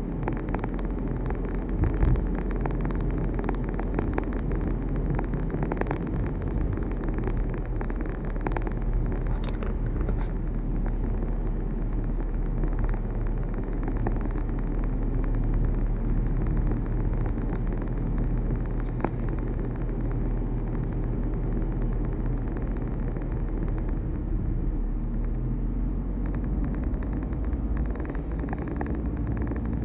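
Steady engine and road noise of a moving vehicle, with a few brief knocks along the way.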